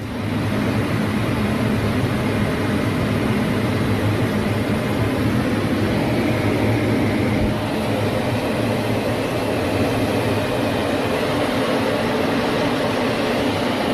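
Fighter jet engine noise during a low pass: a loud, steady rush with a heavy low rumble underneath, holding level with no clear rise or fall.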